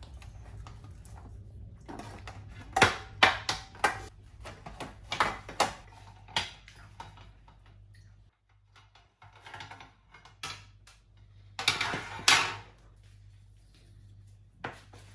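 Baking tray and kitchen utensils knocking and clattering in irregular sharp strikes as a cooled cake is turned out of the tray, with a longer, louder burst of clatter near the end.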